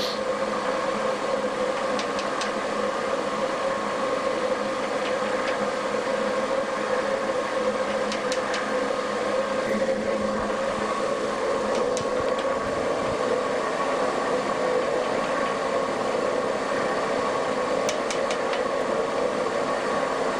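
Klopp metal shaper running and taking cuts, its drive giving a steady mechanical hum, with a few sharp clicks along the way.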